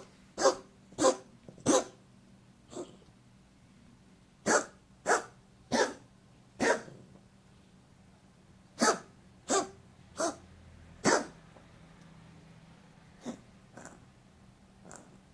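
A dog coughing in fits: three bouts of about four sharp coughs roughly half a second apart, with short pauses between them, then a couple of faint coughs near the end.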